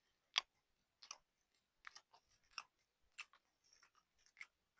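Someone chewing maple-flavoured caramel popcorn close to the microphone: a scattering of faint crunches, the sharpest about half a second in.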